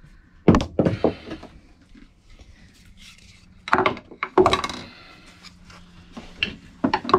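Hammer knocking on a chisel against the wooden fridge box, several sharp separate knocks in small clusters while the built-in fridge is being dismantled.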